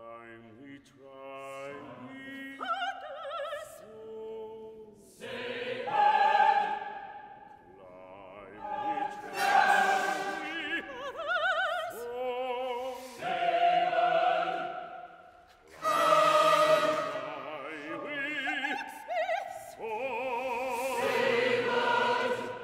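Contemporary choral-orchestral music: soprano and baritone soloists sing with wide vibrato while massed choirs cut in with loud, accented fortissimo chords that enter suddenly several times.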